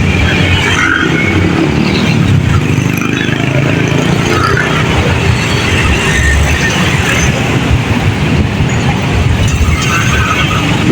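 Road traffic passing close by: a steady, loud rumble of engines and tyres from an intercity bus and other vehicles.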